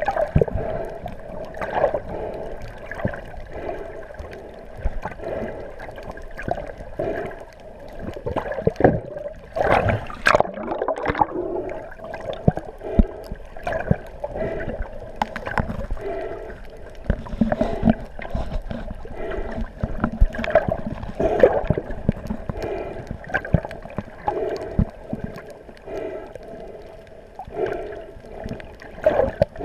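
Water gurgling and sloshing, with a steady hum underneath and irregular knocks and surges.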